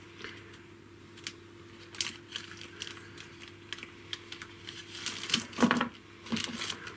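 Small clear plastic zip-lock bag crinkling and crackling in the hands as a microphone capsule is put into it, in scattered light crackles that grow busier and louder near the end, over a faint steady hum.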